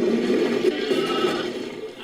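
Designed creature call built from layered goat and sheep bleats: one long, wavering animal cry that fades out near the end.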